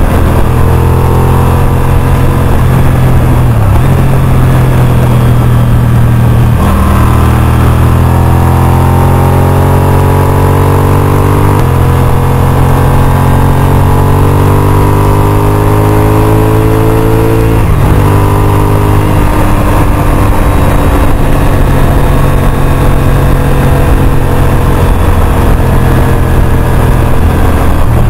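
Honda RC51's V-twin engine running at road speed under a steady rush of wind. About six seconds in it pulls up through the revs, shifts up near twelve seconds and again near eighteen, then settles into a steady cruise.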